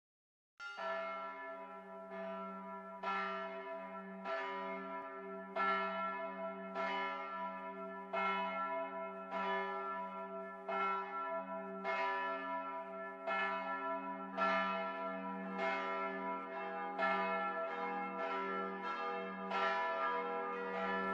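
Church bells ringing, a stroke a little over once a second with each one ringing on into the next, the strokes coming faster near the end.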